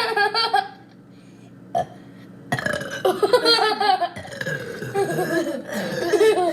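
Loud burping, the gas from gulped carbonated Sprite, mixed with laughter. A short burst comes at the start, then a longer run of burps and laughs from about two and a half seconds in.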